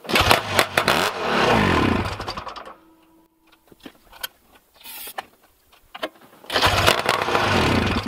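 Ski-Doo TNT 640's two-stroke twin catching on a freshly rebuilt carburettor, running for about two and a half seconds and dying as the revs fall away. It catches again briefly near the end.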